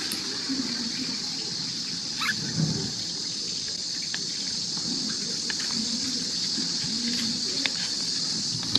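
Steady high-pitched outdoor hiss, with faint, wavering low murmurs and a few soft clicks; one brief higher squeak comes a little over two seconds in.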